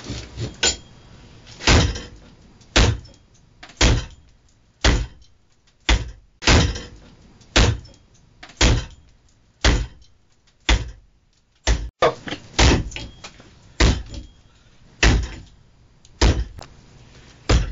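Hatchet chopping wood: sharp chops about once a second in a steady rhythm.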